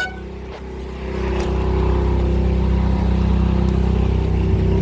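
A car horn cuts off at the very start; then, about a second in, a motor vehicle's engine comes up close and runs steadily as a low hum.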